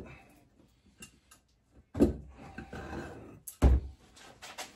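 Knocks and clunks of tools and parts being handled and set down in a workshop. A sharp knock about two seconds in is followed by a moment of rummaging and scraping, then comes the loudest, heaviest thump about three and a half seconds in, with a few light clicks near the end.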